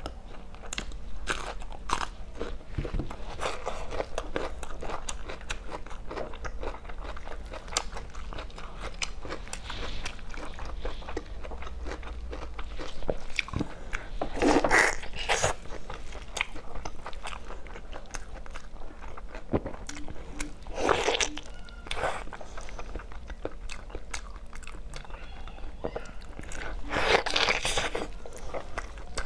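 Close-up eating sounds: a bite and crisp crunching of raw cucumber, then wet, sticky biting and chewing of braised meat, with a steady patter of small mouth clicks and louder bursts of biting about halfway, about two-thirds through and near the end.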